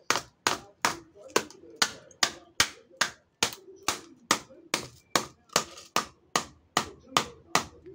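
Steel hammer repeatedly striking the plastic casing of an RO water purifier's pre-carbon filter cartridge on a concrete floor, about two sharp blows a second, cracking the cartridge open.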